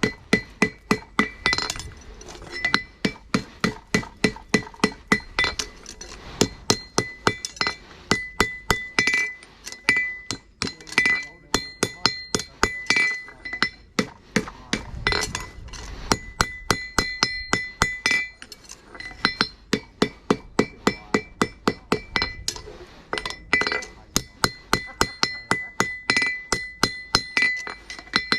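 Hammer striking a horseshoe on an anvil in quick runs of ringing blows, about three a second, with short pauses between runs.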